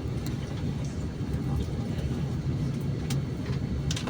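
Airliner cabin noise: a steady low rumble, with a few faint clicks.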